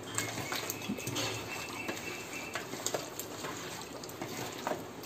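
Wet squelching and irregular soft clicks of a bare hand kneading raw chicken pieces in a thick masala marinade in a bowl.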